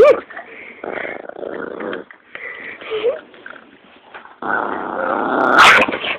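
Small shaggy dog growling as it wrestles with a cat, in three drawn-out growls, the last and longest one the loudest near the end.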